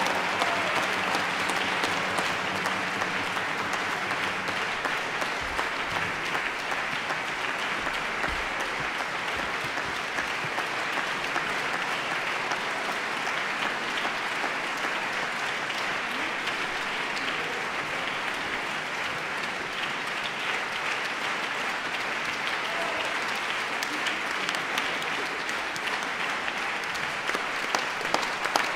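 Concert audience applauding at a curtain call, a dense steady clapping. Near the end the clapping falls into a regular beat of about two claps a second.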